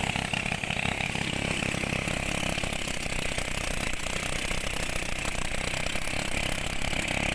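A small engine running steadily at a constant speed, with a steady high hiss over it.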